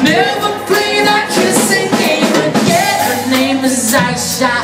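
Live reggae band playing, with a singer's voice carried over the music and drums keeping a steady beat.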